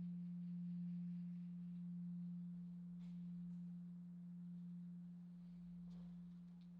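Large Korean Buddhist temple bell (beomjong) of cast bronze humming after a strike: one low tone, its higher overtones already gone, slowly dying away.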